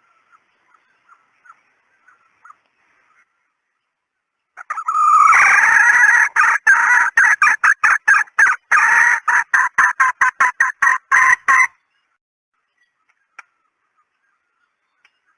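Red junglefowl hen calling: a few soft clucks, then from about five seconds in a long, loud cackle of rapidly repeated notes that come faster before stopping about twelve seconds in.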